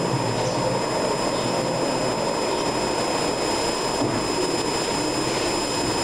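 Steady whirring machine noise from a running motor, unchanging in level, with faint steady high-pitched whines over it.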